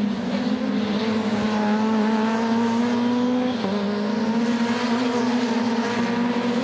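Supercar Lites rallycross cars racing past with their engines at high revs. The engine note holds fairly steady, with one short dip in pitch a little past halfway.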